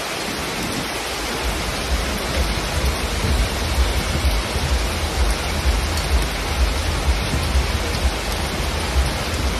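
Heavy rain pouring onto a street, a steady dense hiss. A low rumble runs underneath from about a second and a half in.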